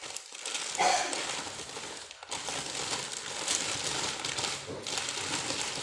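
Packaging crinkling and rustling as it is handled and unwrapped, uneven throughout and loudest about a second in.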